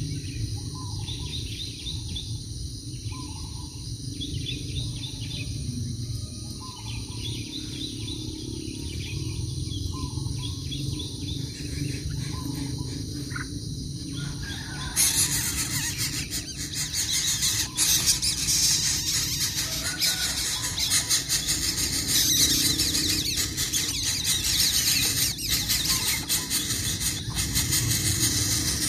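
Outdoor natural ambience: a short bird-like note repeats about once a second, then about halfway through a loud, steady high-pitched shrill sets in abruptly and stays.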